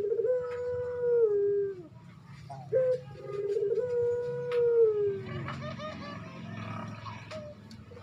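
Male Barbary dove cooing in breeding condition to call a female: two coos, each a short note followed by a long held note that drops in pitch at the end. Softer rustling with a few clicks follows in the last few seconds.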